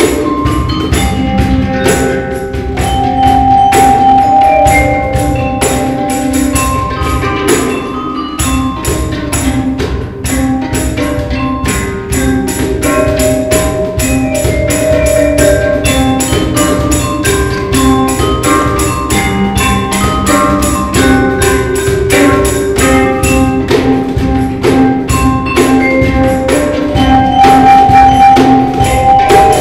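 Percussion ensemble playing together: a handpan, a cajón, a jingling tambourine and a Musser vibraphone. Quick, steady drum and jingle strokes run under ringing melodic notes from the handpan and vibraphone.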